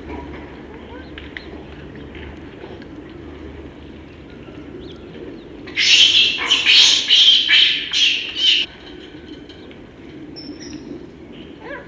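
Rhesus macaque squealing: a loud run of several high-pitched squeals starting about six seconds in and lasting about three seconds, over low steady background noise.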